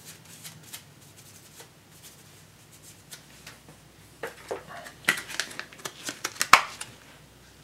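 Handling of the clear plastic clamshell that holds a new processor: light clicks and crinkles from the plastic under gloved fingers. The clicks are sparse at first, get busier about four seconds in, and end with one sharp, louder snap.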